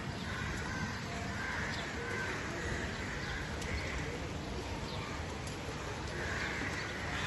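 Crows cawing repeatedly over a steady background hiss.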